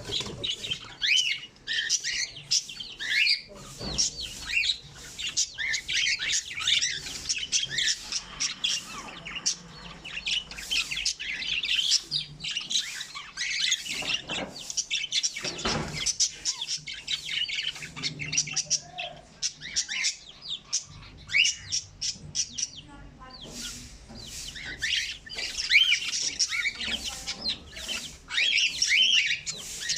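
Many birds chirping at once, short high calls overlapping densely with no real pause, thinning out briefly about two-thirds of the way through.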